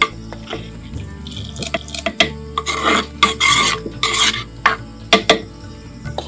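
Wooden ladle stirring in a clay pot, scraping and knocking against its sides.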